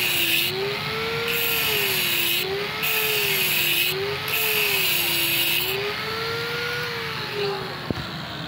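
Handheld electric angle grinder with its disc grinding into a metal pipe in several passes. The motor's pitch rises and falls over and over, and a harsh grinding hiss cuts in and out. The grinding stops about two-thirds of the way through, the motor runs on and winds down, and there is a sharp click near the end.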